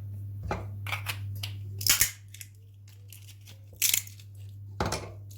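Walnut shells being cracked open: a run of about five sharp cracks, loudest about two and four seconds in, over a steady low hum.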